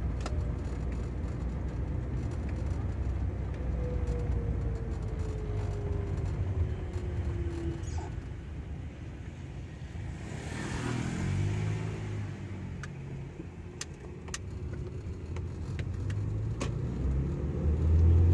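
Car engine and road rumble heard from inside the cabin while driving. A whine falls slowly a few seconds in, and the engine revs up around the middle, after a gear change.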